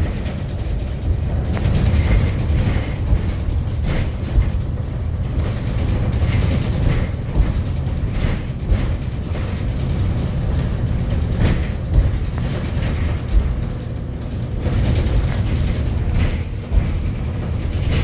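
Low, steady rumble of a moving car, road and wind noise, with a few small clicks and knocks scattered through.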